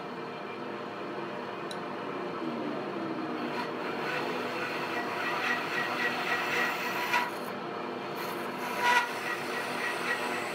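Bandsaw running with its blade cutting through a wooden block: a steady machine whine under the rasp of the blade in the wood, with brief sharper rasps about seven and nine seconds in.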